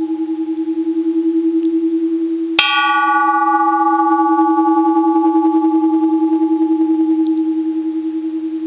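Japanese bronze Buddhist temple bell ringing on with a long, pulsing hum, struck lightly once on the chamfered rim edge about two and a half seconds in. The strike adds a bright ring that fades back into the slowly decaying reverberation.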